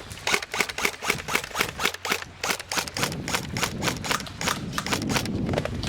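Airsoft guns firing: a quick, irregular run of sharp clicking shots, about four to five a second.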